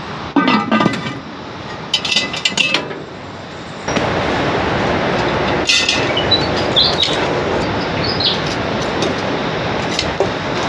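Cast-iron camp oven lid set on the pot with metallic clinks and scrapes. About four seconds in, a steady rushing noise takes over, with occasional clinks of metal tongs placing heat beads on the lid.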